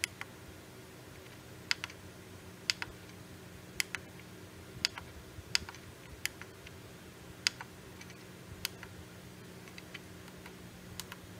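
Tactile push buttons on a DIY DDS signal generator's front panel clicking as they are pressed, about once a second with some quick double presses, while its waveform and frequency settings are stepped through. A faint steady low hum runs underneath.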